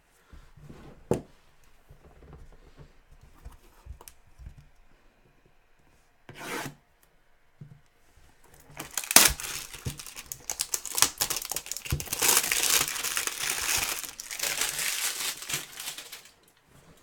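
Plastic wrapping being torn off a sealed box of trading cards and crumpled. A few handling knocks and a sharp click come first, then a short rip about six seconds in, then several seconds of continuous crinkling and tearing.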